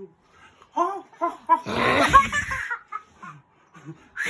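A young child laughing: a few short giggles, then one bigger burst of laughter about two seconds in.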